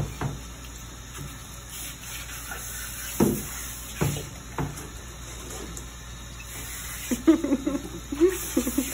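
Handheld shower sprayer running water over a wet cat in a bathing tub, with a few dull knocks. Near the end the cat starts a low, wavering yowl.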